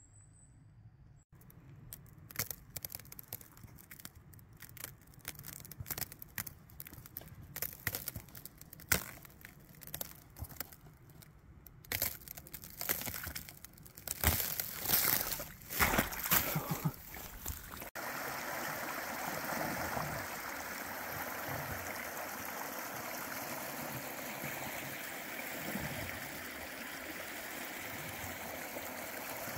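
Rubber boots crunching through dry fallen leaves and wading into shallow water, with the loudest splashing steps a little past the middle. Then a shallow river running steadily over rocks.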